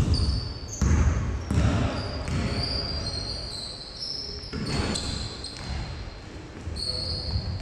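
Basketball bouncing on an indoor court, several heavy thuds at uneven spacing, with sneakers squeaking on the floor.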